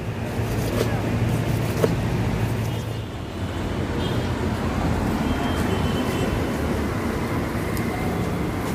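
Steady low rumble of passing street traffic, with a couple of sharp knocks in the first two seconds.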